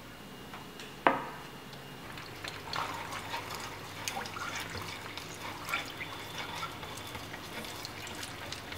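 Salted water bubbling in a metal pan and stirred with wooden chopsticks: small irregular splashes and clicks. A single sharp knock about a second in is the loudest sound.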